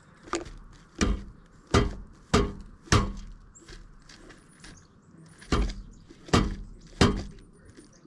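Pileated woodpecker pecking at a wooden platform feeder close to the microphone: sharp single knocks, five in quick succession over the first three seconds, a pause, then three more.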